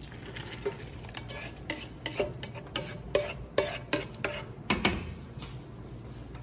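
A ladle scraping and knocking against a frying pan as sautéed vegetables are scraped out into a stockpot of boiling water. The knocks and scrapes come quickly, one after another, for about five seconds, the loudest two near the end of the run, over a steady low rumble.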